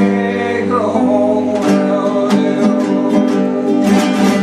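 Flamenco guitar playing between sung lines of a serrana, with plucked notes and sharp strummed chords coming about every half second from the middle of the stretch on.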